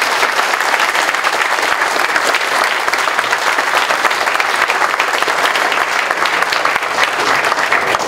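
Audience applauding, a dense and steady sound of many people clapping.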